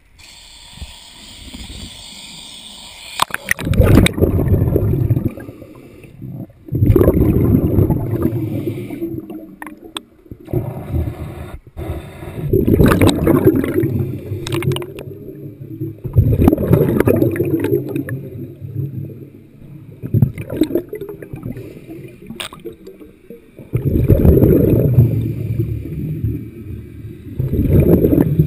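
Muffled water sloshing and gurgling heard through a camera held under the lake surface, in loud surges every few seconds with quieter spells between.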